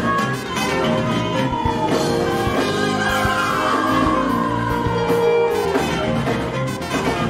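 Live gospel band with keyboards, drums and guitar playing, and a man singing over it through a microphone and PA.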